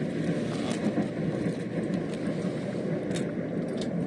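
Steady low wind rumble on the microphone, with a few faint clicks near the end.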